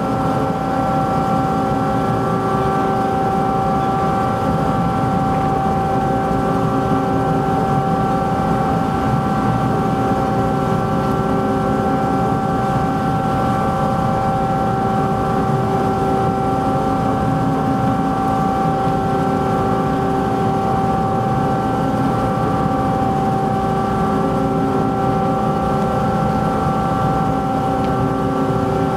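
The docked ferry MV Queen of Cumberland's machinery running steadily: a constant low drone with several steady tones on top, one mid-pitched whine standing out.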